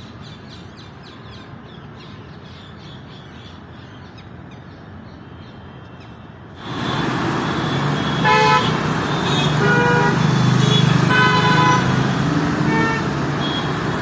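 Faint ambience with light repeated chirps. About seven seconds in, it switches abruptly to loud road traffic: engines running and several short car horn toots.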